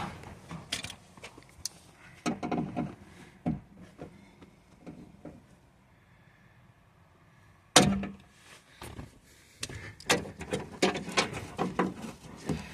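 Scattered plastic clicks and knocks of hands unclipping the wiring-harness clips inside a Fiat Bravo II door, with one sharp snap about eight seconds in and a quicker run of clicks near the end.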